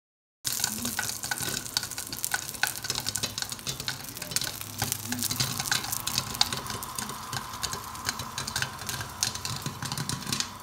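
Popcorn kernels and oil sizzling and crackling inside a covered pot on a gas burner, a dense run of small sharp snaps. It starts abruptly about half a second in, and a faint steady whine joins it about halfway through.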